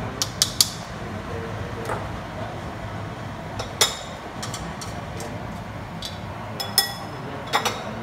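Kitchen clatter from a metal noodle-blanching basket, chopsticks, a stainless pot and ceramic bowls: a quick cluster of sharp clinks at the start, a single ringing clink about four seconds in, and two or three more near the end, over a steady low hum.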